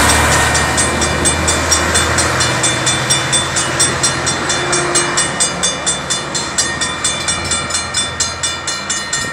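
Railway crossing warning bell ringing steadily, about four strikes a second, while a Metrolink commuter train passes and pulls away; the train's low diesel rumble drops off about two and a half seconds in and the overall sound slowly fades as the train recedes.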